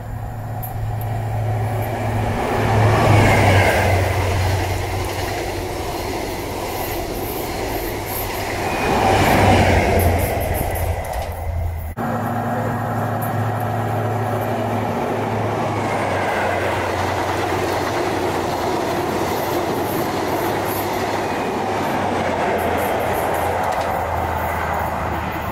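Diesel High Speed Train (InterCity 125) power cars running past on the main line: a steady low engine drone with rail and wheel noise, swelling twice as the train draws near. After a sudden cut about twelve seconds in, another HST is heard approaching with the same steady engine drone.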